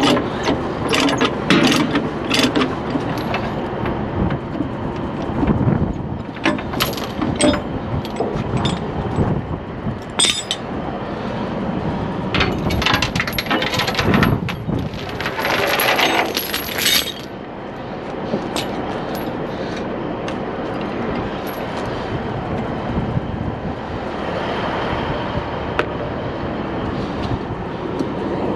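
Steel tie-down chains clinking and clanking as they are unhooked and handled on the trailer deck, in scattered bursts of metal rattling with one dense clatter around the middle, followed by steadier background noise.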